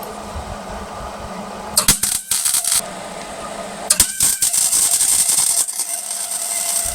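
Electric welding arc crackling on the sheet-steel core support in loud bursts: it starts suddenly about two seconds in, stops for about a second, then runs again to the end. A steady hum is underneath before the first burst.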